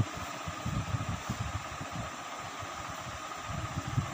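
Steady hum and hiss of a room fan, with irregular soft low knocks as a pen rules lines on paper on a desk.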